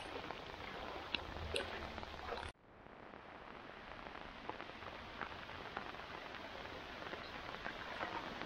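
Steady rain falling onto standing floodwater, with scattered small drips and splashes. About two and a half seconds in, the sound drops out briefly where the recording cuts, then the rain carries on.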